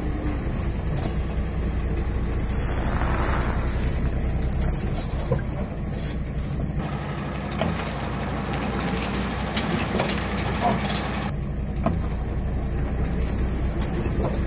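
Truck engine idling with a steady low rumble as the tyre creeps over objects on the asphalt, with a brief hiss about three seconds in.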